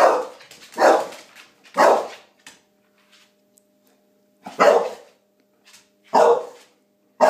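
A pet dog barking at a vacuum cleaner that frightens it: three barks about a second apart, a pause of a couple of seconds, then two more barks.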